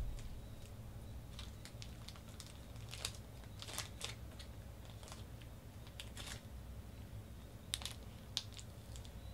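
Faint scattered clicks and crinkles, with a few sharper ones about three to four seconds in and near the end, over a low steady hum.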